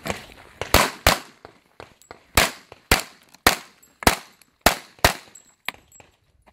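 A string of handgun shots fired during an IPSC practical shooting stage: about eight loud, sharp cracks, mostly about half a second apart, with fainter cracks between them.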